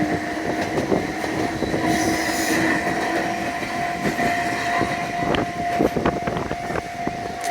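Enoden electric train passing over a level crossing, its wheels clicking over the rail joints, thickest from about four seconds in. The crossing's warning bell rings as one steady tone throughout.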